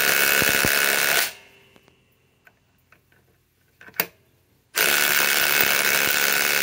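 Ryobi PSBIW25 compact impact wrench hammering hard on a 6-inch lag bolt that it can barely drive any further. It stops about a second in, a single sharp knock comes about four seconds in, and it starts hammering again just before five seconds.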